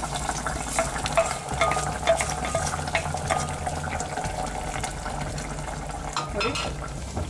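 Hot ghee tadka of dried red chillies and curry leaves sizzling and crackling as it is poured into a clay pot of fish curry, then a wooden spoon stirring it through the curry. A low steady hum runs underneath.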